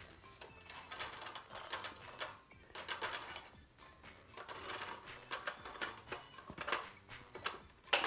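Large plastic toy bulldozer pushed along a hardwood floor, its tracks and wheels clicking and rattling in quick, irregular runs.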